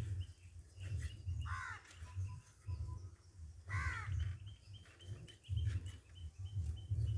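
Crows cawing, two short calls a couple of seconds apart, over a run of dull low thuds and faint high bird chirping.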